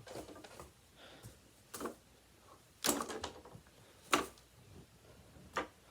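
A handful of separate sharp knocks and clatters, about four in all, like small hard objects being picked up and put down; the one near the middle is the loudest.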